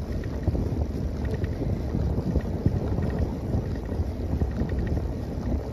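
Wind buffeting the microphone of a moving bicycle, with a steady low rumble from the tyres rolling over brick pavers.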